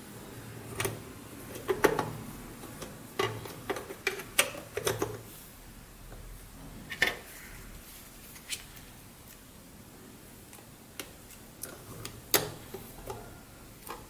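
Hard plastic housing parts of a handheld remote control being handled and fitted together: scattered, irregular clicks and knocks, bunched in the first few seconds, with a sharp click near the end.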